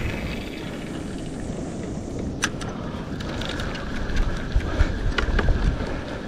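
Wind on the microphone and choppy sea water sloshing around a kayak, a steady rumble and hiss, with a few sharp clicks and knocks, the plainest about two and a half seconds in.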